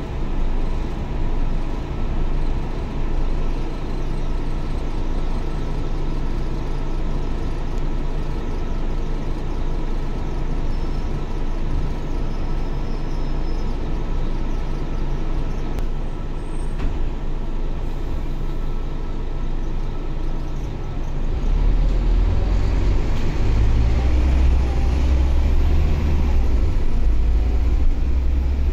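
Scania K320UA articulated bus running along the O-Bahn guided busway: a steady drone of engine and road noise. A little over two-thirds of the way through, a deeper, louder rumble sets in and holds.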